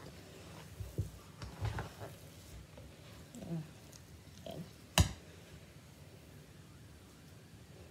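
Hands mixing and squeezing sticky glutinous rice dough in a stainless steel bowl, with soft, uneven mixing sounds over the first couple of seconds. A single sharp knock about five seconds in is the loudest sound.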